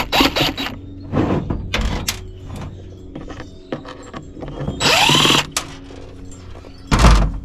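Tools working on a metal-and-brass gauge housing: a series of sharp clanks and knocks, a short power-tool whir about five seconds in, and a heavy thud near the end.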